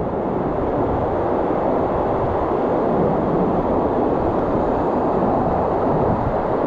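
Steady roar of the spring-fed Thunder River waterfall, a heavy, unbroken rush of falling water.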